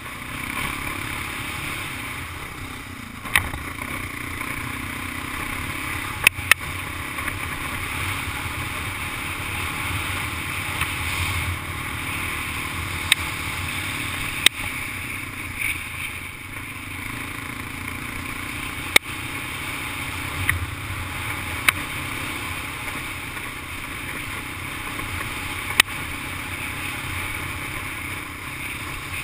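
Honda ATV engine running under way with steady road and wind noise, broken by sharp clicks or knocks about eight times, at irregular moments.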